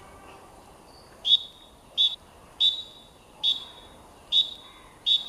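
Six short blasts of a whistle at an even pace, about three-quarters of a second apart, each a flat high tone with a sharp start, calling the tempo for group squats.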